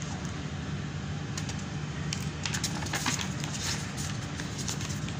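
Sheets of a stack of printed paper invoices being turned and lifted by hand, with scattered short paper rustles and crackles over a steady low hum.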